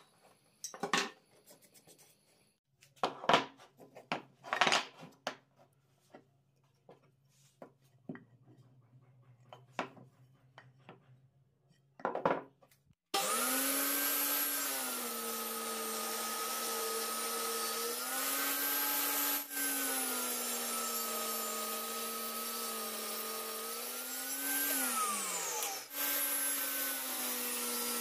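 A few scattered knocks and scrapes of hand work on wood. Then, about 13 seconds in, a table saw starts running with a steady whine whose pitch sags and recovers as the blade cuts through hardwood, and it drops briefly near the end.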